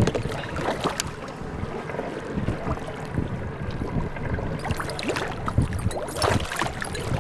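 Choppy lake water lapping against a boat's hull, with wind on the microphone. A hooked smallmouth bass splashes at the surface beside the boat about six seconds in.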